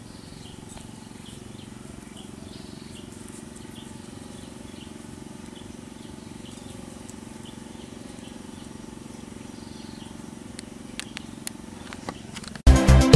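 Rural outdoor ambience: a steady low hum with short high-pitched chirps repeating about every half second. A few clicks come near the end, then loud electronic music starts abruptly just before the end.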